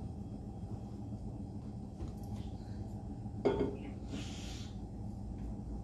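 A single short knock, as of something set down on a hard surface, about three and a half seconds in, followed by a brief rustle, over a steady low hum.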